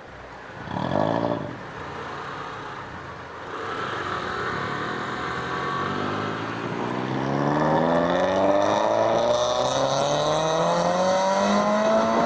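Yamaha XMAX 250 scooter engine accelerating away from a standstill, its pitch rising steadily for the last six seconds or so. A brief louder engine burst comes about a second in.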